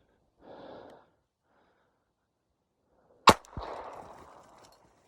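A single sharp gunshot about three seconds in, its echo trailing off over about a second, most likely the trapper dispatching the trapped wolf. A brief soft rustle comes about half a second in.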